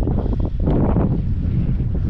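Wind buffeting the microphone, a steady low rumble that swells for a moment about half a second in.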